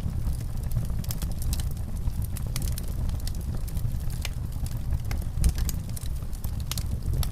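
Wood fire in a fireplace crackling, with many irregular sharp pops over a steady low rumble.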